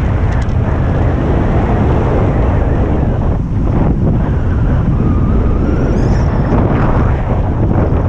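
Wind buffeting a camera microphone in flight under a paraglider: a loud, steady rumble of rushing air.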